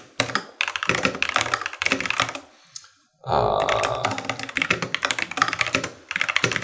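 Fast typing on a computer keyboard: dense runs of key clicks, with a short break about three seconds in.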